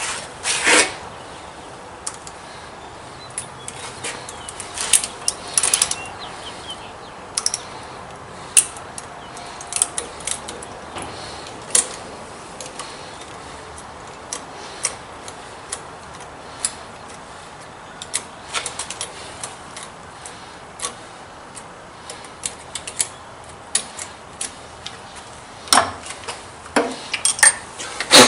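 Irregular clicks and clinks of hand tools and small metal parts being handled, with a few louder knocks near the start and near the end.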